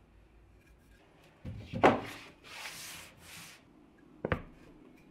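Solid pine block being handled on a hard tabletop: a sharp wooden knock as it is set down, two rubbing slides, then a second sharp knock about two and a half seconds later.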